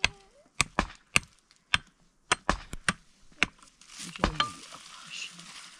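Hand pick striking stony ground, about a dozen sharp knocks at uneven intervals, followed by a rough scratching noise as earth and stones are scraped aside.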